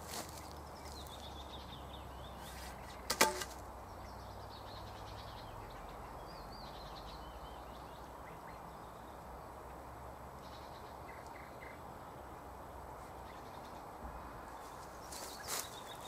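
Faint high birdsong in short warbled phrases over a steady low background hum. A single sharp knock with a brief ring about three seconds in, and a few lighter knocks near the end.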